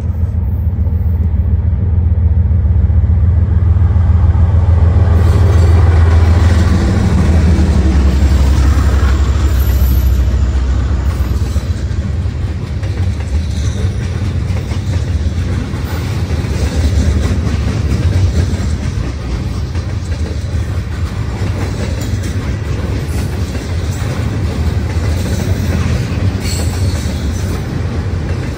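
Freight train passing close by. The locomotive's deep rumble is loudest in the first several seconds, then a long string of open-top freight cars rolls past with steady clickety-clack wheel noise on the rails.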